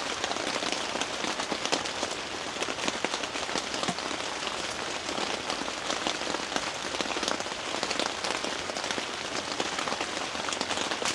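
Steady rain falling, heard as an even hiss dotted with many separate drop ticks.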